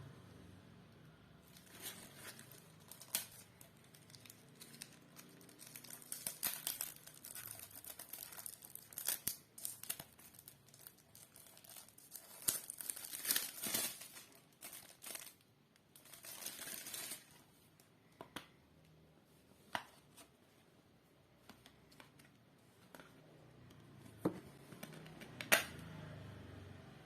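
Packaging being torn open and crinkled by hand, in repeated bursts of tearing and rustling, followed later by a few separate clicks and knocks.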